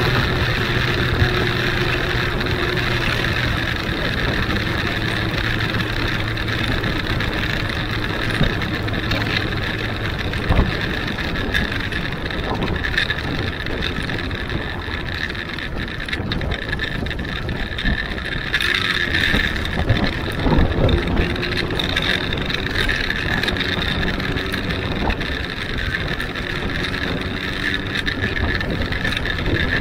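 Huanglong 600 motorcycle's inline-four engine running steadily while riding, with wind rushing over the microphone and a few short knocks.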